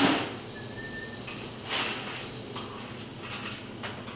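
Barista work clatter behind a café counter: a sharp knock right at the start, another clunk a little under two seconds in, and lighter knocks and clinks after.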